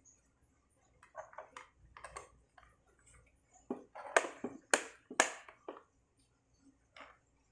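Scattered light clicks and taps of hands working on a laptop's case and parts, with a cluster of sharper, louder clicks about four to five and a half seconds in.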